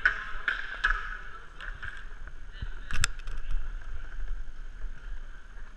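Inline skate wheels rolling and clattering over plastic sport-court floor tiles, with scattered light clicks and one sharp knock about three seconds in.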